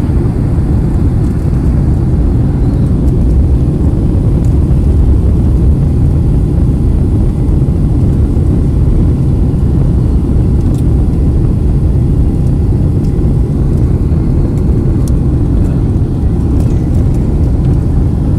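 Steady low rumble of engine and airflow noise inside a Boeing 767's cabin on final approach with the flaps extended.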